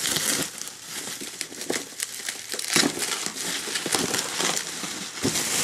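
Bubble wrap crinkling and rustling in irregular crackles as it is handled and pulled off a small box.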